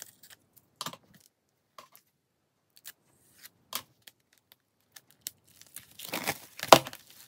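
Plastic shrink wrap on a CD jewel case being slit with a pointed tool and pulled off. Scattered small scratches and clicks, then a louder stretch of tearing and crinkling near the end.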